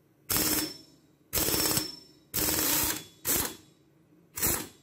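Impact gun hammering in five short bursts about a second apart, loosening the flywheel nut on an ATV engine's crankshaft.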